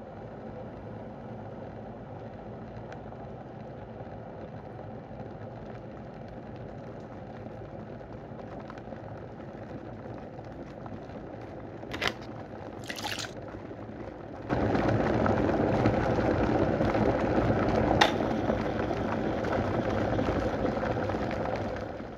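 Steady rush of water that gets clearly louder about fourteen seconds in, with a sharp click about twelve seconds in, a brief hiss just after it, and another click near eighteen seconds.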